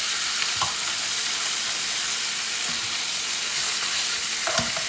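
Chicken pieces sizzling steadily as they brown in hot olive oil in a pot, with a few soft knocks as a utensil turns the pieces.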